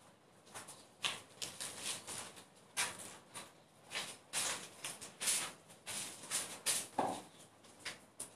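Irregular soft clicks, taps and rustles of things being handled on an altar table, with a duller knock about seven seconds in.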